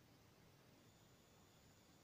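Near silence: faint steady hiss of room tone, with a very faint high tone that returns less than a second in.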